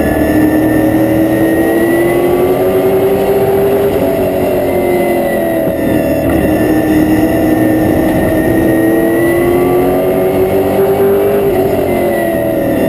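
Stock car engine heard from inside the cockpit, running hard; its pitch climbs slowly for about four seconds, drops back about six seconds in, then climbs again and eases off near the end.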